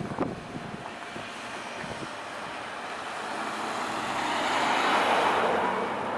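A vehicle passing by, its noise swelling to a peak about five seconds in and then starting to fade, after a few sharp knocks near the start.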